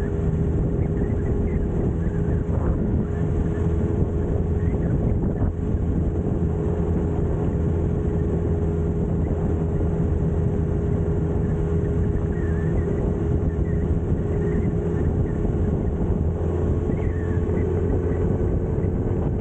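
Suzuki Katana motorcycle engine running at a steady cruising speed, its pitch holding level with no gear changes, under a steady rush of wind and road noise.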